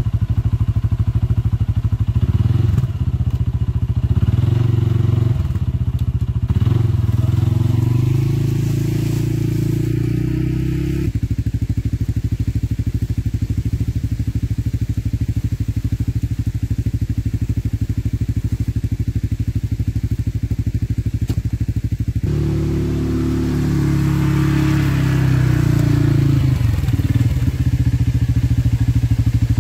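Engines running without a break: a utility ATV revving up and down as it drags logs on a tow strap, with the pitch shifting in the first third and again near the end, and a steady engine running close by in between.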